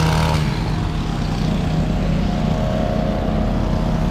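Work van engine running as the van drives slowly in, a steady hum that turns rougher about half a second in.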